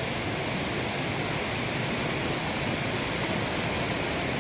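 Small waterfall rushing steadily over rocks, an even hiss of falling water.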